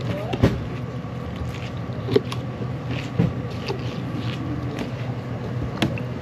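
A steady low engine hum, with a few sharp knocks and clatters over it.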